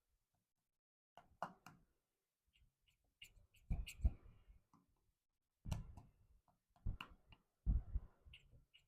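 Small toys being handled: several clusters of light taps, knocks and clicks, with a few short high blips between them.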